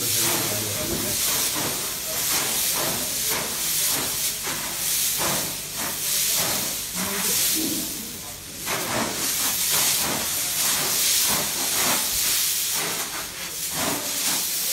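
A heap of dry green cardamom pods rustling and sliding as workers wade through, kick and turn it, a loose hissing rustle that swells and fades in repeated surges, easing briefly about eight seconds in.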